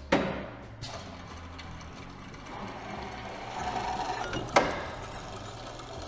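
Tormach AF50+ automatic-feed bandsaw's mechanism running with a steady whirr. Sharp knocks come right at the start, a lighter one about a second in, and a loud one about four and a half seconds in.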